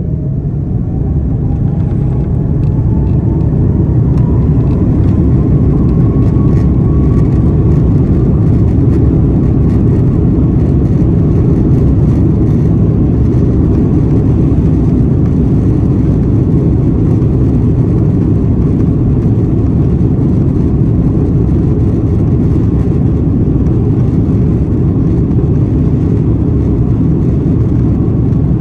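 Airbus A330 jet engines spooling up to takeoff thrust, heard from inside the cabin: a whine rises in pitch over the first several seconds as the sound grows louder, then the engines run steadily at high power with a loud, even rush.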